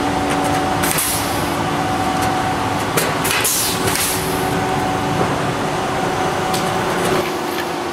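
Pneumatic rivet pullers setting 5/32-inch pulled (pop) rivets in an aluminium wing spar: several sharp pops, some followed by a short hiss of exhaust air, over a steady mechanical hum.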